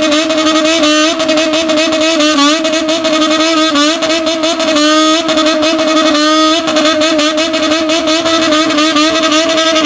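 Honda CB400-type in-line-four motorcycle engine revved and held high, its pitch wavering with a few quick swoops as the throttle is worked in a bosozoku-style rev 'call'.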